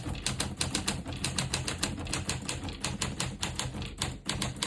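1947 Smith-Corona Clipper manual portable typewriter being typed on: a quick, even run of key strikes, several a second, with a short break about four seconds in.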